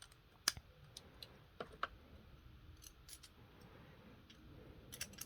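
Faint, scattered clicks of Beyblade parts being fitted together, for the Dark Bull H145SD's wheels, track and tip. A sharp click comes about half a second in, a few more follow at irregular intervals, and there is a small cluster near the end.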